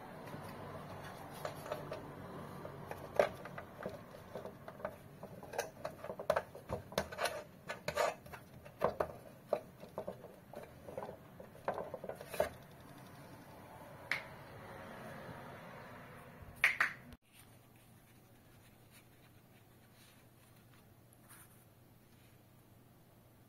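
Irregular clicks, taps and rubbing of hard plastic as a white LED ceiling light fixture is handled. The clatter stops abruptly about 17 seconds in, leaving faint room tone.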